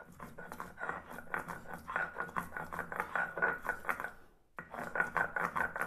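Stone roller scraping back and forth on a sil-batta grinding slab, crushing wet garlic cloves into paste: quick, rhythmic grinding strokes, with a short pause about four seconds in.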